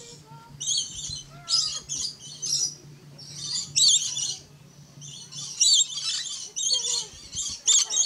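Lorikeets chattering: shrill chirps and screeches in quick bursts, over and over, with a steady low hum underneath that stops about five and a half seconds in.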